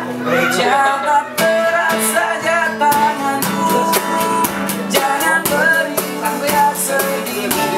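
A man singing a melody to a strummed acoustic guitar, with steady, evenly repeated strokes.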